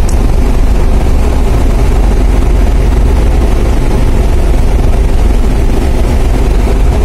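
Steady, loud low drone of the ferry KMP DLN Oasis's engines, heard on its passenger deck while under way at sea, with an even rushing noise on top.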